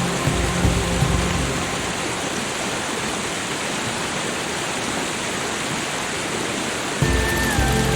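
Steady rushing hiss of water, as in a rain or falling-water ambience track. Soft background music with low held tones fades out in the first second or two and comes back about seven seconds in.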